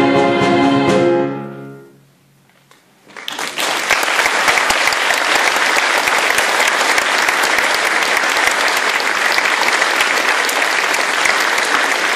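A girls' choir holds its final chord, which fades away about two seconds in; after a brief hush the audience breaks into steady applause.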